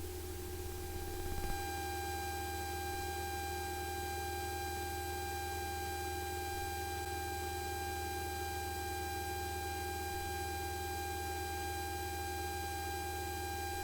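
Steady cabin drone of a Cessna 172 in level flight, heard through the headset/intercom audio feed as an even low hum with a fixed high-pitched whine.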